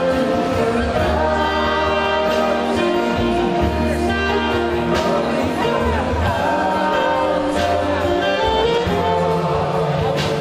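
A woman and a man singing a song together into microphones, backed by a small live band of acoustic guitar, upright bass, keyboard and violins.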